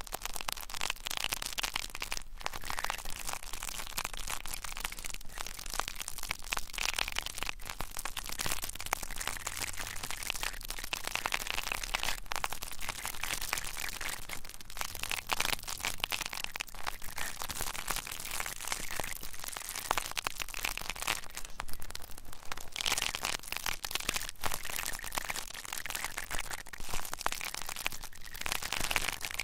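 Dense, continuous crackling and crinkling close against a 3Dio binaural microphone, an ASMR trigger sound.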